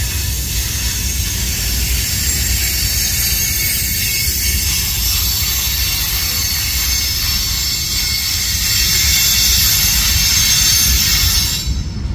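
Covered hopper cars of a CN freight train rolling past, their steel wheels squealing high and steady over a low rumble. The squeal stops suddenly near the end as the last car goes by.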